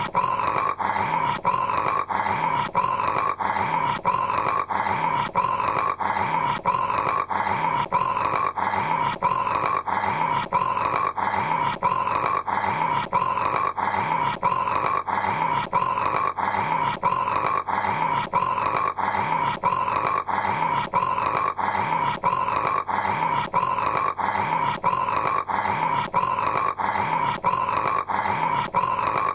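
A man snoring, one short rasping snore repeating about once a second in an even, unbroken rhythm.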